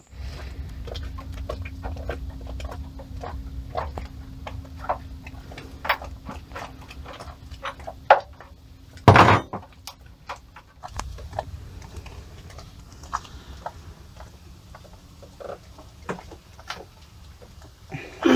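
Spanners clinking and clicking against metal while bolts on a boat's inboard engine are worked on, with one louder clatter about nine seconds in. A low hum runs underneath.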